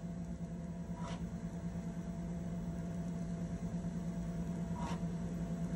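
Steady low hum and hiss from a vintage audio-visual training-film player in a gap of the soundtrack, with two faint short ticks, about a second in and near the end.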